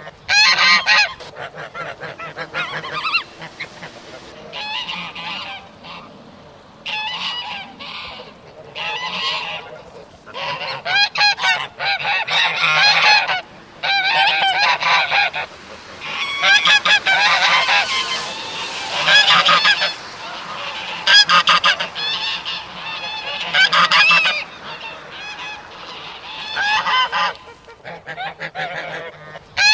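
A flock of geese honking and chattering in repeated bouts, with quieter calling between them.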